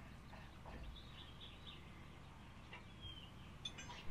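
Faint bird chirps over a quiet background, with a couple of soft clicks near the end.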